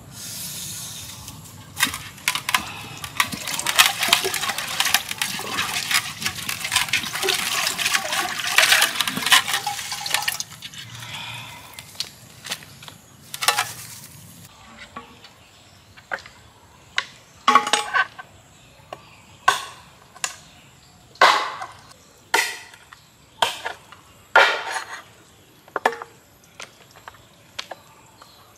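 Water pouring and splashing as a raw whole chicken is washed. After about ten seconds it breaks into a run of separate wet splashes and slaps, roughly one a second.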